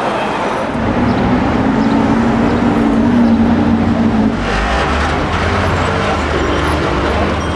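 City avenue traffic: a steady background of vehicle noise, with one engine humming steadily, then a heavier, deeper engine sound coming in about halfway through as a vehicle moves past.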